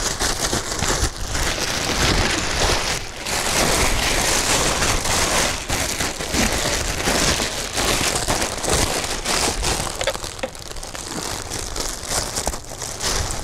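Large clear plastic bag packed with straw, crinkling and rustling as hands press down on it and gather its neck to close it: a dense, continuous crackle.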